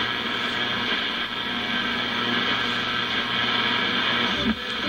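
AM car radio tuned between stations: steady static hiss with a low hum from the speaker of a 1969 Chrysler solid-state AM/8-track unit as its dial is turned toward weak stations at the low end of the band.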